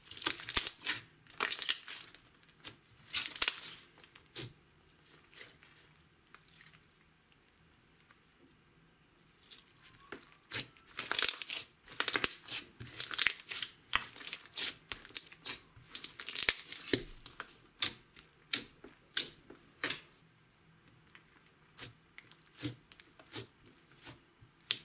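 Hands squeezing and kneading thick glitter slime: sticky, wet crackling and popping in irregular bursts, with a quieter stretch of a few seconds about a third of the way in.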